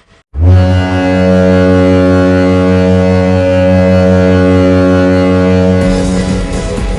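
NHL arena goal horn sounding one long, loud, low blast of about five and a half seconds. It starts abruptly after a brief gap and gives way to goal-song music near the end.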